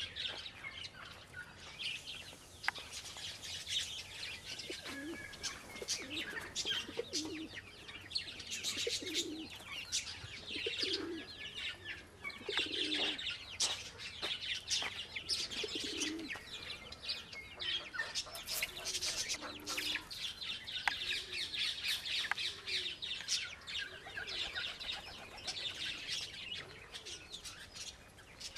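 Domestic pigeons cooing, short low coos repeated every second or two, over a constant busy chatter of small birds chirping.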